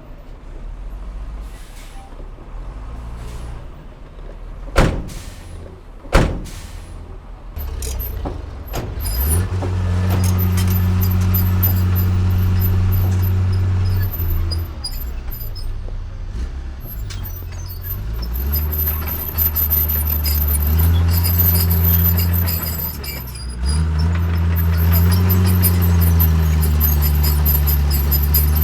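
Heavy diesel earthmoving machinery working: after two sharp bangs, an engine comes up loud about a third of the way in, eases off for a few seconds, then runs hard again with its pitch rising and falling.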